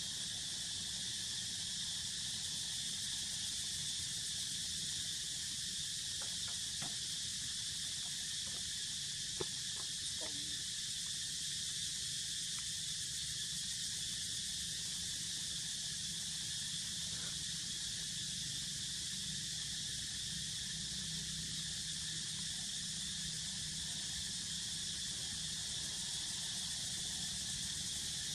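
Steady, unbroken high-pitched chirring of insects, with a low steady rumble underneath and a few faint ticks.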